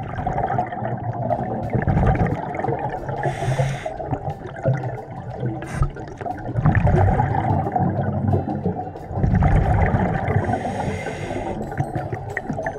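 Underwater sound of a scuba diver breathing through a regulator. There are two hissing inhalations about seven seconds apart, and low bubbling of exhaled air between them, over a muffled water noise.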